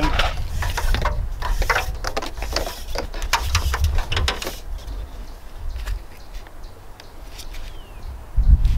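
Flexible plastic condensate drain hose being pulled and handled, rustling and scraping in quick strokes for the first four seconds or so, then only a few scattered clicks. Under it a steady low rumble that swells loudly near the end.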